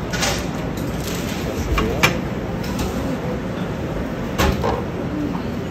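Busy indoor ambience: a steady background hum with faint voices, and a couple of sharp knocks, one about two seconds in and another a little past four seconds.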